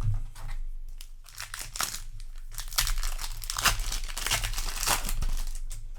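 Foil booster-pack wrapper crinkling and rustling as it is handled, in a dense run of crackly noise that builds about a second in and fades near the end.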